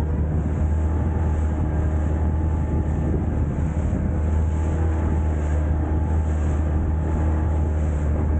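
Outboard motor of an inflatable RIB running steadily at cruising speed, heard from on board with water rushing past the hull.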